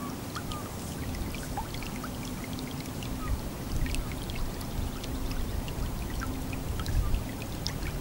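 Shallow stream of water running over grass, a steady trickling wash with many small splashes and drips.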